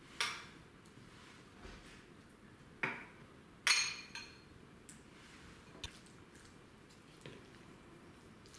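Metal spoon and knife clinking against ceramic and glass bowls and a wooden cutting board as mayonnaise is spooned into a salad: about six sharp, scattered clinks, the loudest a little over three and a half seconds in with a brief ring.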